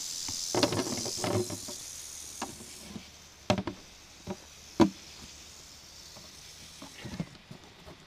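Timber rattlesnake rattling, a steady high buzz that fades out about three seconds in. Then a few sharp knocks as a plastic lid is put on and pressed down onto the bucket holding the snake.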